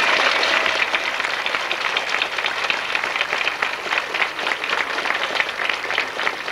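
Audience applause: many people clapping at once, steady throughout.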